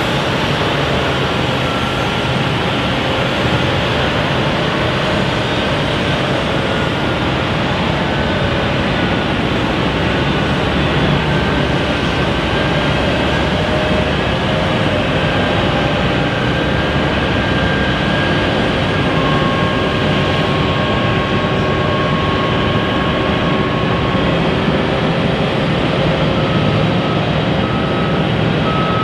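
Steady, loud jet airliner engine noise with faint whining tones drifting through it. About three seconds before the end, a vehicle's reversing beeper starts beeping evenly.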